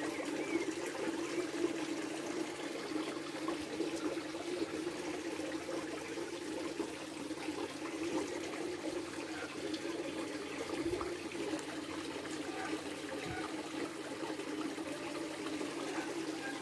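Steady running, trickling water, an even wash of noise without a break.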